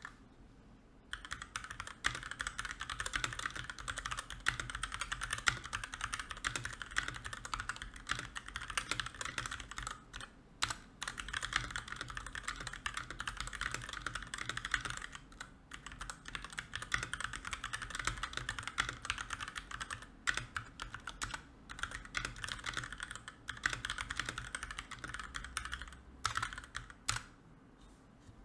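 Fast, continuous typing on a mechanical computer keyboard: a dense run of key clicks broken by several short pauses.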